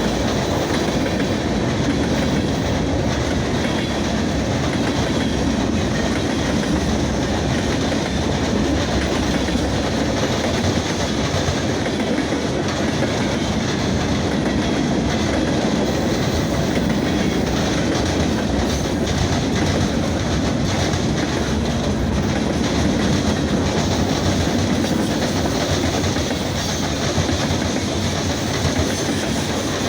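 Norfolk Southern freight train's cars rolling past steadily, a continuous rail noise that holds even throughout.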